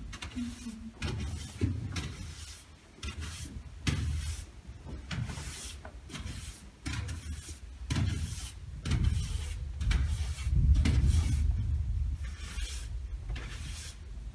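Push broom's bristles sweeping across a wooden stage floor in a series of rasping strokes, with low bumps and rumble from movement on the hollow stage boards, heaviest in the second half.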